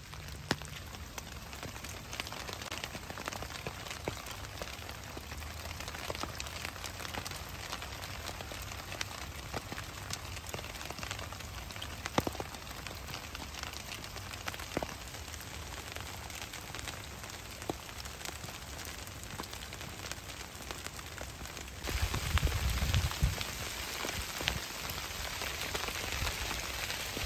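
Steady rain falling on leaves and a tarp, dotted with scattered sharp drip ticks. About 22 seconds in, the rain on the tarp grows louder and hissier, with a brief low rumble.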